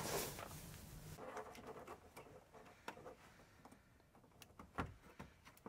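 Faint scattered clicks and small rattles of plastic wiring-harness connectors being handled and pushed together: a new turn-signal harness connector being plugged into the original rear-light harness. A few sharper clicks come in the last second or so.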